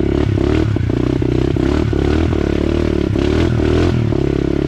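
Mini dirt bike's small engine running at low throttle, its pitch wavering up and down as the rider eases the throttle on and off, with repeated clattering knocks from the bike jolting over the bumpy trail.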